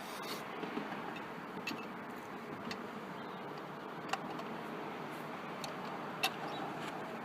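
About five sharp, light clicks and taps from tools and parts being handled during car cooling-system work, spaced a second or so apart, over a steady background rush. The loudest click comes about six seconds in.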